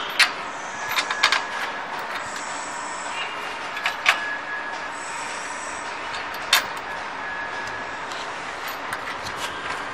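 Steel parts of a chalk-making machine being handled and fitted together: a few sharp metal clanks and knocks, with thin squeaks of metal sliding on metal in between.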